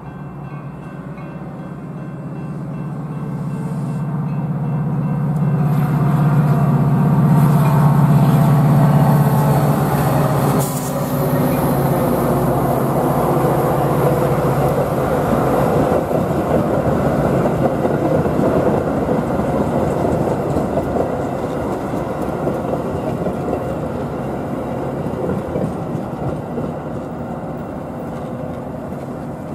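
Metra commuter train passing close by: the leading diesel locomotive's steady low drone builds and peaks about eight seconds in, and after a sharp clank about ten seconds in, the bilevel cars' wheels rumble and clatter over the rails, slowly fading.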